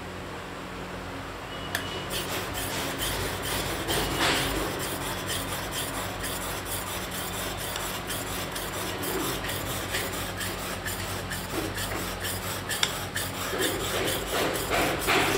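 Scratching noise made of many quick small ticks, starting about two seconds in, over a steady low hum.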